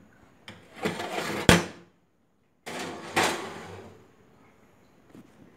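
Camera being handled and set down, its body rubbing and scraping close to the microphone, with a sharp clack about a second and a half in; after a brief dropout a second scrape fades out about four seconds in.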